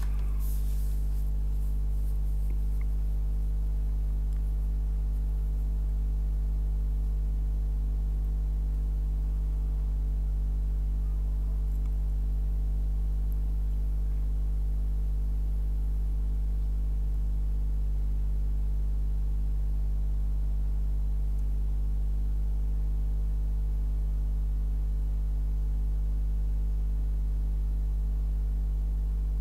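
A steady low hum with no changes or sudden sounds.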